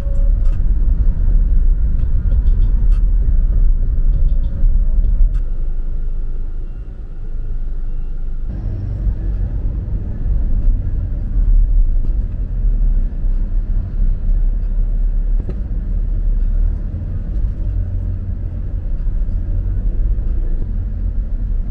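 Road vehicle running with a steady low rumble; the sound changes abruptly about eight and a half seconds in.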